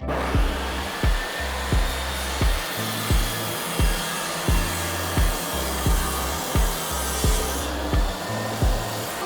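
A power tool running steadily with an even rushing noise that starts abruptly and stops near the end, over background music with a steady thumping beat.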